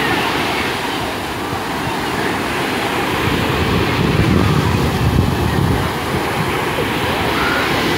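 Surf breaking and washing up on a sandy shore, with wind on the microphone. A louder low surge comes about halfway through.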